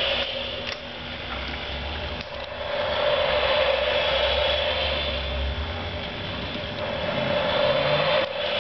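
A small machine running with a steady hum over a hiss, swelling louder at times.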